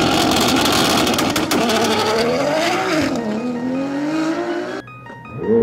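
Nissan GT-R's twin-turbo V6 launching off the drag-strip line and accelerating hard away. The engine note rises and drops at each upshift, twice, with a crackling edge for the first few seconds. The sound then cuts off suddenly near the end.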